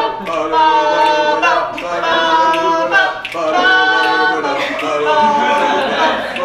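A small a cappella group of one woman and two men singing in harmony, with held notes that change every second or so.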